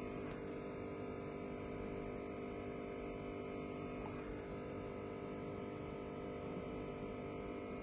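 Steady electrical hum: a constant drone with several steady tones, and no other event standing out.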